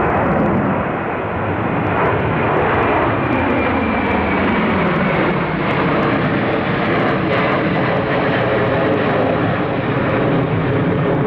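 Jet airliner's engines passing close by with a loud, steady roar, their pitch slowly falling as it goes past.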